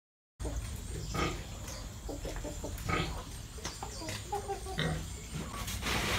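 Pigs grunting, a string of short irregular calls with a brief higher-pitched call about four seconds in. The sound cuts in abruptly about half a second in.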